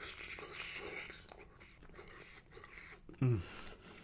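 Close-miked chewing of a mouthful of soft spicy rice with egg and melted Gouda, with quiet wet mouth sounds. About three seconds in comes a short hummed "mm" that falls in pitch.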